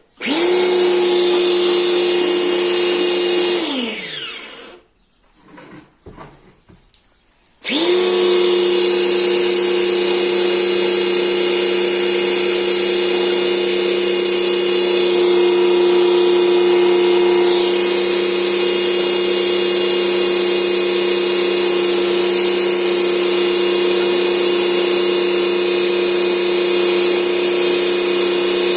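Electric power tool motor running at a steady pitch with a high whine. It is switched off after about three and a half seconds and spins down with a falling pitch. After a pause of about three seconds it starts again and runs steadily.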